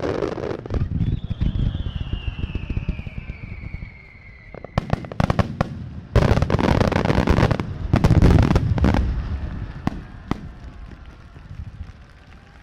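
Fireworks display: aerial shells bursting with low booms. A long whistle falls steadily in pitch over the first few seconds. From about five to nine seconds in comes a dense volley of sharp bangs and crackling, which thins to a few single cracks and fades.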